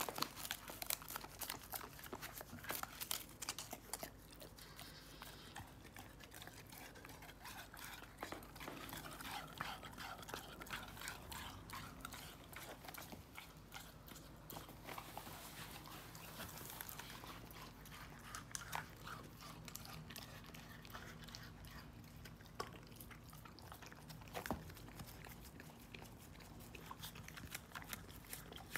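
Golden retriever puppy licking dog ice cream from a small paper cup: a faint, quick run of small licking and mouth clicks.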